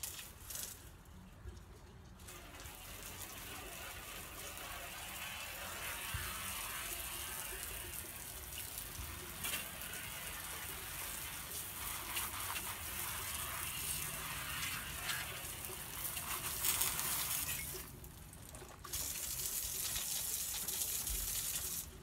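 Garden hose spraying water in a steady hiss, starting about two seconds in, stopping for a moment near the end, then spraying again until it cuts off suddenly.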